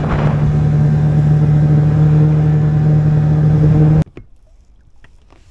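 Boat motor running at a steady pitch, cut off abruptly about four seconds in, after which only faint ticks remain.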